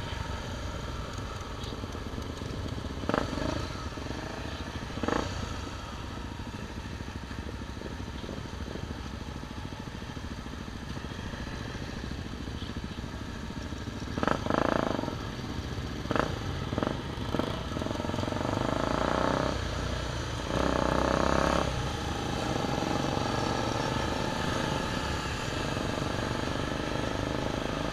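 Motorcycle engines running as a group of trail bikes rides along, a steady engine sound with several louder stretches from about halfway through.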